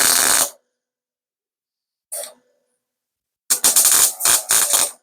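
Wire-feed (MIG) welder laying short tack welds on sheet-metal door skin: a crackling burst that stops just after the start, a brief one about two seconds in, and a longer crackling run of about a second and a half near the end.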